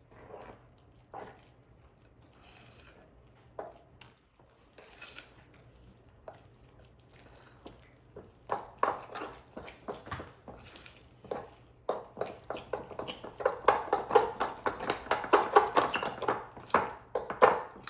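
Metal spoon stirring thick banana bread batter in a mixing bowl, clinking and scraping against the bowl. Sparse and faint at first, it becomes a fast, steady run of scrapes and clinks from about halfway in, loudest near the end.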